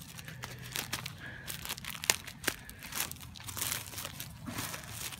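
Clear plastic wrapping around a new fuel filter crinkling and tearing as it is pulled open by hand, in a string of irregular sharp crackles.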